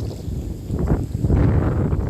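Strong wind buffeting the microphone: a loud, gusty low rumble that swells about halfway through.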